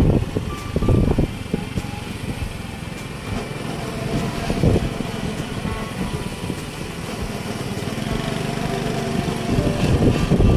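Motorcycle engine running at travelling speed along a dirt track, with wind rumbling on the microphone, heaviest near the start and the end.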